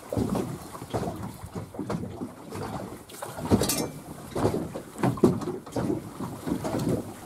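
Wind buffeting the microphone in irregular gusts, mixed with water slapping against the hull of a small boat, with a short hiss about halfway through.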